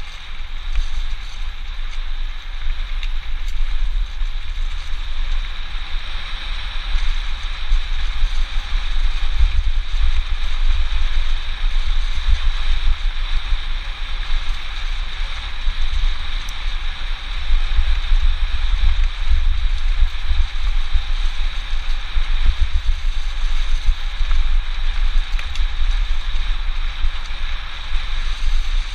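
Wind buffeting the microphone of a bike-mounted camera during a fast mountain-bike descent, a heavy rumble, over the steady rush of the tyres rolling on a gravel and leaf-covered dirt track.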